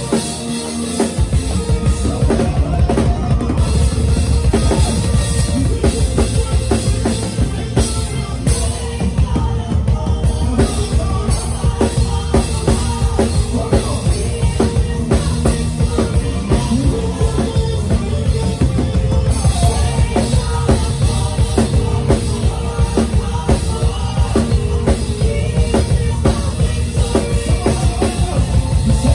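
Live praise band playing a driving groove: drum kit with kick and snare keeping a fast, even beat, and heavy bass coming in about a second in.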